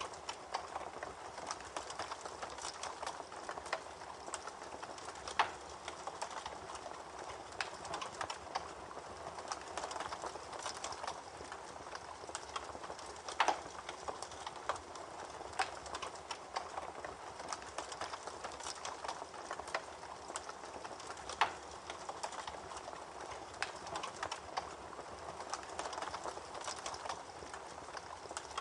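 Campfire crackling, with dense small snaps and a few louder pops, over the steady rush of a babbling creek.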